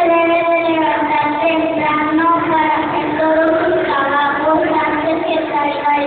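Young children singing a song, holding each note for a half second to a second before moving to the next.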